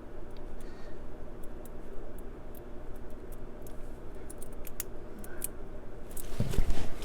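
Faint, scattered metallic ticks and clicks of a lock pick working the pins inside a Brinks 50 mm padlock, over a low steady hum. A louder rustling noise comes in near the end.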